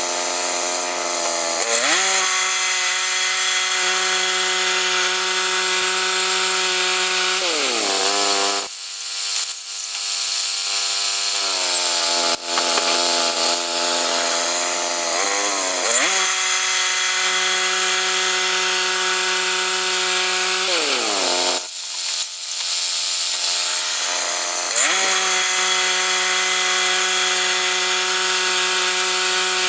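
Chainsaw engine running at high revs, its pitch dropping and climbing back several times as the throttle is eased off and opened again.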